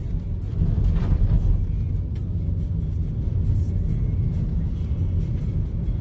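Steady low road rumble inside a car's cabin as it drives along an unsealed gravel road.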